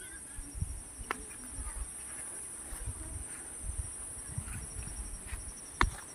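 Steady high-pitched insect buzz with a faint chirp in it, over low thuds of footsteps and camera handling. Two sharp clicks, about a second in and near the end.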